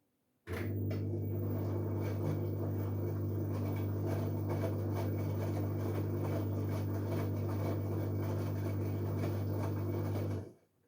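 LG Direct Drive 8.5 kg washing machine running with a steady electric hum. The hum switches on abruptly about half a second in and cuts off suddenly after about ten seconds.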